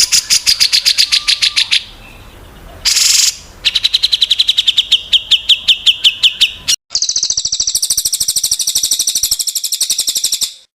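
Small songbirds' rapid trills spliced together as masteran, song recordings for competition birds to copy: a run of about nine sharp chirps a second, a brief hiss, a trill that falls slightly in pitch, then, after an abrupt cut, a faster, higher trill that stops suddenly near the end.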